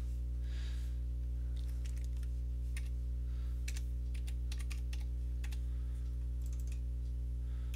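Scattered computer keyboard keystrokes and clicks as numbers are typed in, over a steady low electrical hum.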